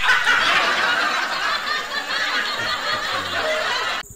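Laughter sound effect, a crowd laughing, dubbed in over a missed air-rifle shot; it cuts off abruptly near the end.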